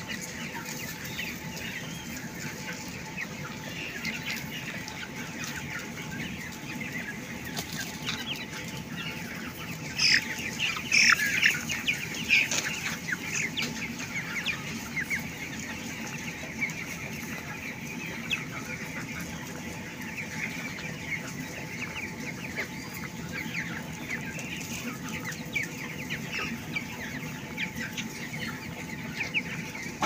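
A flock of three-week-old broiler chickens calling, a constant chatter of many short clucks and cheeps. It grows busier and louder for a few seconds around ten seconds in.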